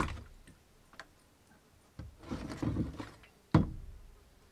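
A few sharp knocks and clunks from a red plastic tub of vinegar being handled, the loudest about three and a half seconds in.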